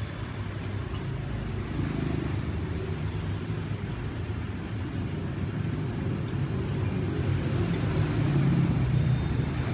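Steady road traffic with vehicle engines running past, swelling louder about eight seconds in as a vehicle passes close.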